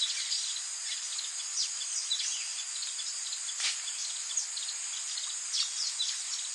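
Rainforest ambience: a steady high-pitched chorus of insects with many short, falling bird chirps scattered through it, and one sharp tick a little past the middle.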